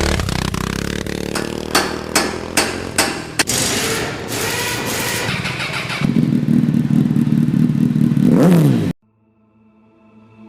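UM Renegade Commando 125's 125 cc single-cylinder motorcycle engine running and revving, with several sharp knocks early on. It then holds a steadier, higher note, drops in pitch and cuts off suddenly; quiet music fades in near the end.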